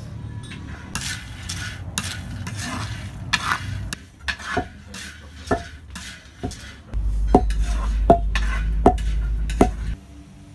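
Luwak coffee beans being stirred with a wooden spatula in a roasting pan over a wood fire: scraping and a run of sharp clicks as the spatula and beans knock against the pan. A low rumble sits under the second half and stops just before the end.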